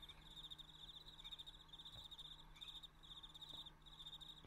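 Faint cricket song: repeated short trills at one high pitch, each about half a second long with brief gaps between them.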